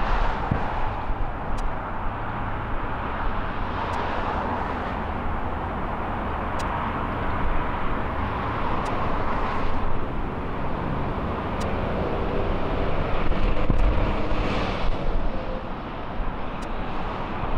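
Jet airliner engine noise: a steady, broad rumble with a hiss, swelling a little about three-quarters of the way through.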